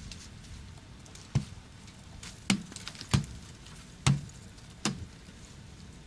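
Five sharp knocks, unevenly spaced, as blows break thick rime ice off a frozen broadcast antenna.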